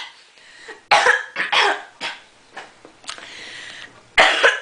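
A person's cough attack from an itchy, irritated throat: a run of harsh coughs starting about a second in and trailing off, then another loud cough near the end.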